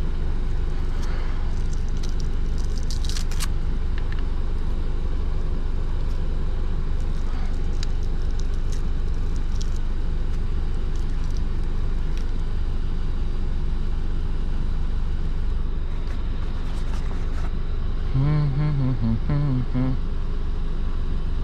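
Steady low rumble of wind on the microphone, with a few sharp clicks from hands handling the RC car's battery and wiring in the first few seconds. A brief voice near the end.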